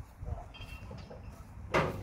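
A short scraping clatter of ride parts being handled, about three-quarters of the way in, over a steady low rumble.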